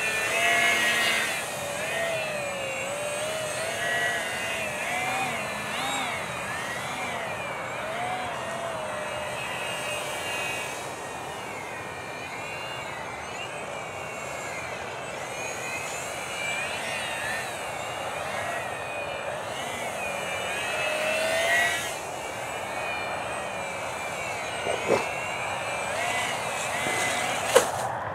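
Electric motor and propeller of a small RC foam flying wing whining in flight, its pitch wavering up and down as the throttle changes and the plane passes back and forth. Two sharp knocks in the last few seconds.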